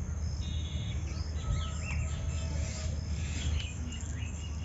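Background birds chirping here and there, with a brief insect-like trill near the start, over a low steady hum.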